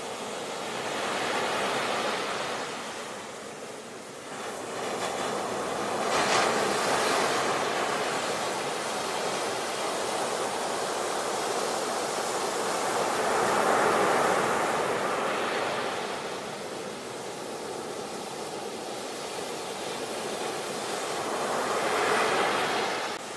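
Sea surf: small waves breaking and washing up a beach as a continuous hiss that swells and falls back four times, about every six to eight seconds.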